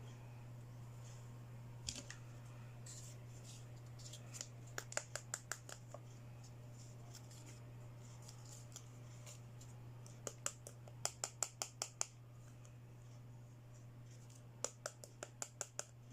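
Toy packaging and small plastic accessories being handled, in three quick runs of sharp clicks, several a second, over a steady low hum.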